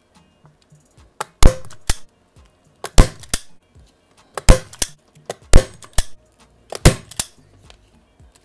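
Hand-squeeze staple gun fired into wood five times, each shot a sharp snap followed a moment later by a lighter second click.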